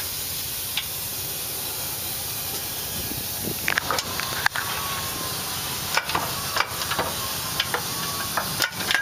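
Steady hiss, joined from about a third of the way in by scattered metal clinks and knocks of tools and parts, then a quick run of taps near the end.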